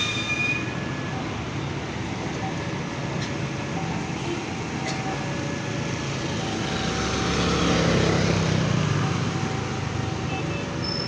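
Bus engines at a terminal exit, running steadily in a mix of traffic noise, swelling louder about seven to nine seconds in as a bus passes close. A short high squeal sounds right at the start.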